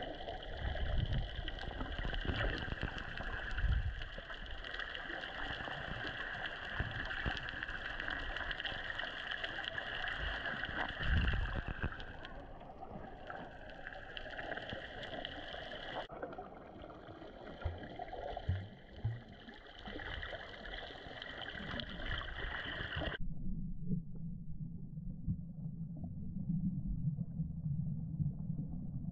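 Muffled underwater noise from a camera beneath the surface: a steady wash of water sound with some gurgling. The sound changes abruptly twice, becoming much duller and lower near the end.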